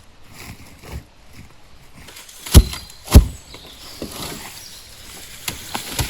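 Two loud knocks a little over half a second apart, followed by lighter clicks and rustling.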